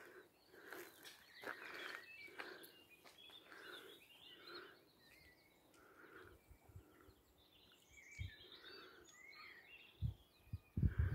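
Hen clucking softly and repeatedly, about one to two clucks a second, with high chirping in between. A few low thumps near the end.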